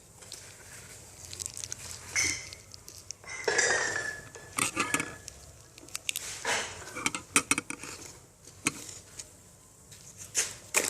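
Irregular clinks, taps and short scrapes of a utensil against a small container, with glue being mixed for slime.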